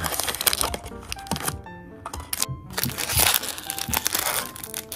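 Crinkling and crackling of a foil Topps Inception trading-card pack being lifted from its box and handled, loudest in the second half, over light background music.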